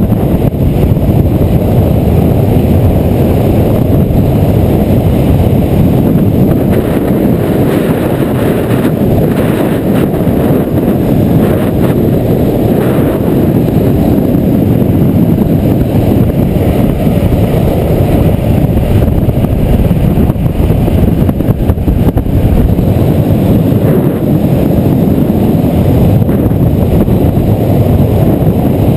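Loud, steady wind rush buffeting the microphone at downhill longboarding speed, with the rumble of longboard wheels rolling over asphalt.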